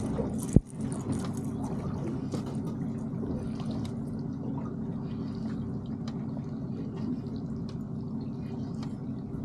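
Water lapping and dripping against a small boat's hull over a steady low hum. A single sharp knock comes just after the start, with light scattered ticks through the rest.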